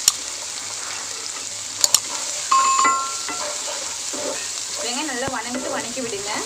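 Chopped onion and garlic sizzling in hot oil in a nonstick pan with mustard seeds, dried red chillies and curry leaves, stirred with a wooden spatula. The spatula knocks sharply against the pan a couple of times in the first two seconds.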